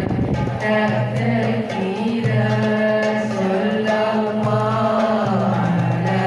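Sung selawat, a devotional Islamic chant in praise of the Prophet: a voice holding long, slowly bending melodic notes. It begins about half a second in, after a short stretch of rushing noise.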